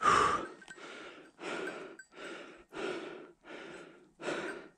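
A man panting hard, with quick, even breaths about one every three-quarters of a second, about six in all.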